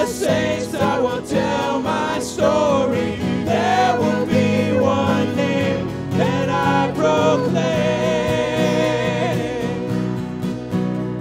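Live worship band playing a song, with guitars, drums and keyboard under lead and backing vocals. A long note is held in the second half, and the singing drops away near the end, leaving the instruments.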